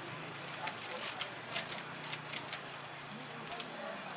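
Thin clear plastic bag crinkling and crackling in the hands as a portion of cut green mango is bagged and the bag twisted closed, a string of short sharp crackles.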